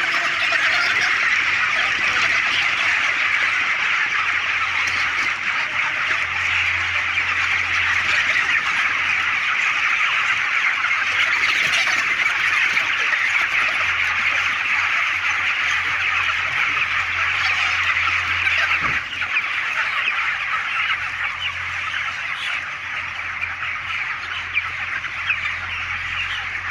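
A large flock of 28-day-old broiler chickens peeping and clucking together in one dense, unbroken chatter, over a low steady hum. It eases a little after about two thirds of the way through.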